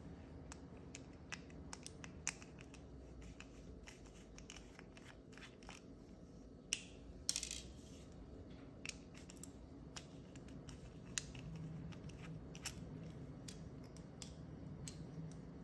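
Light clicks and scrapes of a small precision screwdriver working on a Nest Cam's plastic housing, scattered and irregular, with a few sharper clacks a little past halfway.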